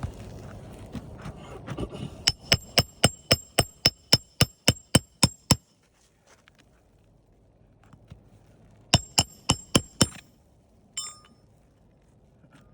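Hand hammer driving roofing nails into asphalt shingles: a run of about a dozen quick, ringing metal-on-metal strikes, about four a second. After a pause of a few seconds comes a second burst of about six strikes, then a single click.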